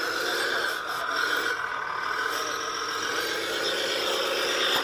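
Scale RC MAN 8x8 trial truck's drivetrain whining steadily as it crawls over a log and rocks.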